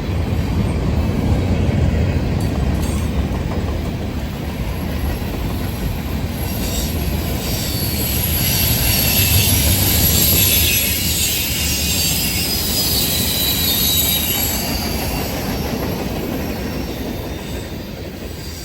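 Freight train cars rolling past through a curve: a steady low rumble of wheels on rail with high flange squeal over it. The squeal is loudest about ten seconds in, then eases off.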